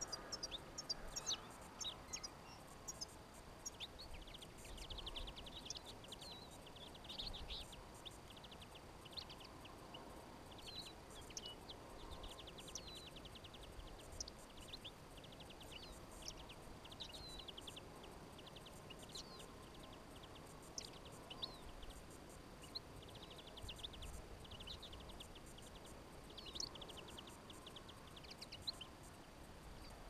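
Small finches twittering and calling: many short high chirps, with bouts of rapid trilled twitter every few seconds.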